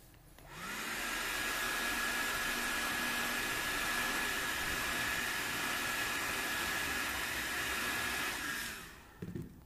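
Hand-held hair dryer switched on about half a second in, its motor whine rising as it spins up, then blowing steadily with a high tone over the rush of air, and switched off shortly before the end. It is blowing hot air onto a phone's glass to soften the glue beneath it.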